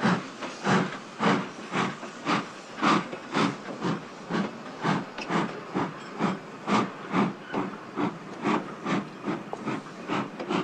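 Steam locomotive chuffing as it pulls out, with regular exhaust puffs about two a second. The beat quickens a little and grows fainter.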